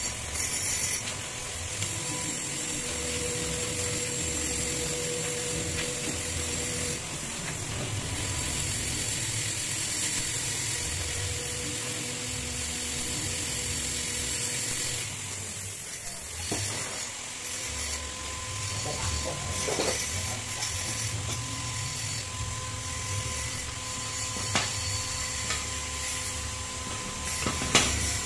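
Gas welding torch flame hissing steadily as it melts aluminium filler rod onto an aluminium motorcycle cylinder head, with a sharp metal clink near the end.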